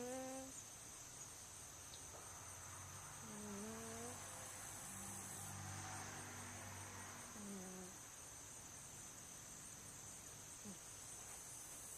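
Sleeping cat snoring softly: a short rising snore at the start, then a longer breath with a pitched snore on the intake about three seconds in and a falling one at its end about seven and a half seconds in.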